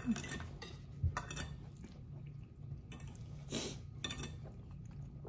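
Forks clinking and scraping against plates as people eat, a few scattered short clicks, with a brief napkin rustle about three and a half seconds in. A low steady hum sits underneath.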